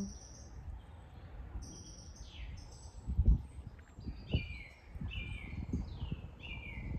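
Woodland birdsong: clear high whistled notes and a repeated run of downward-slurred phrases. Irregular low rumbles sit underneath, the loudest about three seconds in.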